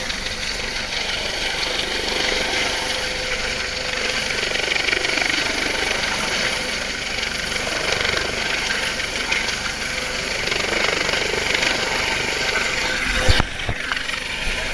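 Coast Guard rescue helicopter hovering close by, a steady rotor and engine drone mixed with wind and sea noise. A single sharp knock near the end.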